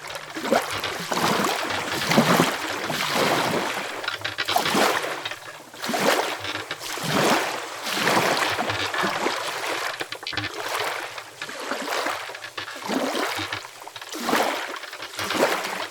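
Water splashing and sloshing in irregular surges, each swell lasting a second or two.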